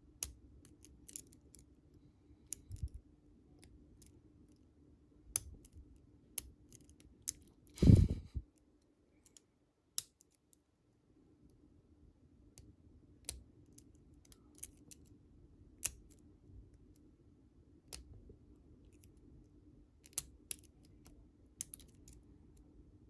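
Scattered small metallic clicks and scrapes of lock picks and a tension wrench working the pins of a security-pinned Commando padlock, with one louder knock about eight seconds in.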